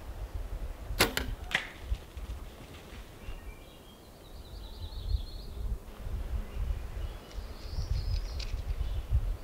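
A bow shot at a bear: a sharp crack of the bowstring release about a second in, then a second sharp knock about half a second later.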